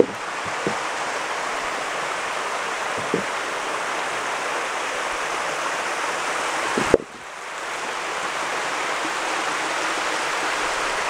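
Long waterfall cascading down wet black rock: a steady rush of falling water. A few short knocks sound over it, the sharpest about seven seconds in, after which the rush briefly dips and swells back.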